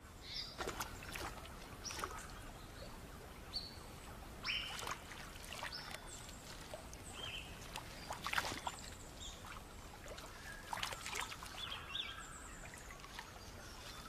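River water splashing and trickling as a net is handled and lifted in the shallows, with scattered short high chirps in the background.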